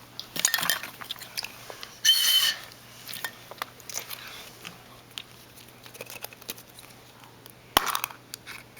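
Small hard plastic objects being handled: scattered clicks and clinks, a short rustle about two seconds in, and a sharp knock near the end.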